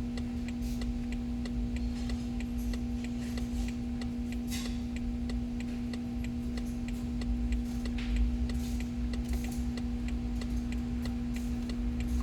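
A steady electrical hum with light, regular ticking a few times a second over it.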